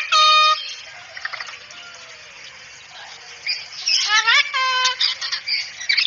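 Cockatoo calling: short, loud, harsh calls that each slide up and then hold a pitch. One comes right at the start, then a run of several from about three and a half to five seconds in.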